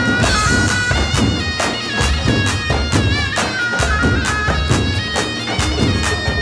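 Lebanese zaffe music: large double-headed tabl drums beaten with sticks in a steady driving rhythm, about three strokes a second, under a reedy wind-instrument melody.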